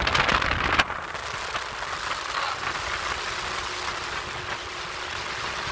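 Motorboat under way: its engine runs steadily beneath a constant rush of wind and water. The rush is louder and gustier for about the first second, then settles.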